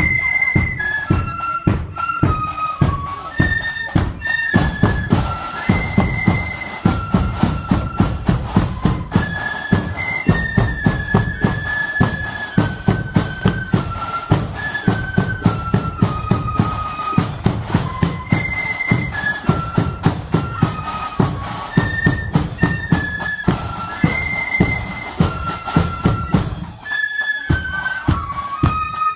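Marching flute band playing a tune: massed flutes carry a high melody over a steady beat of drums.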